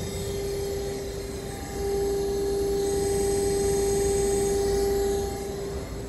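Outdoor unit of a 2019 Mitsubishi Hyper Heat ductless heat pump running hard in heat mode: a pretty loud, steady rush of air with an even hum over it. The hum grows louder about two seconds in and eases near the end.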